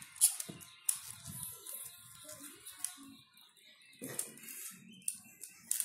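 Plastic toy train track sections being handled and joined: several sharp plastic clicks at irregular intervals, with light rattling in between.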